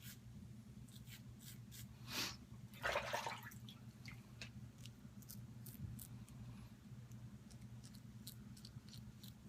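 Merkur Futur double-edge safety razor scraping through lathered stubble in short, rapid strokes, with two louder rasping strokes about two and three seconds in. A steady low hum runs underneath.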